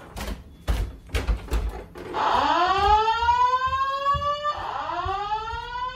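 Simplex 4100ES voice evacuation speakers sounding the whoop alert tone between repeats of the evacuation message: a loud rising sweep that repeats about every two and a half seconds, starting about two seconds in. It follows a few light knocks.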